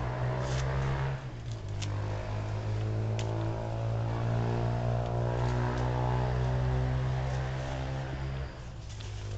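An engine running steadily, its pitch shifting slightly about a second in and again near the end.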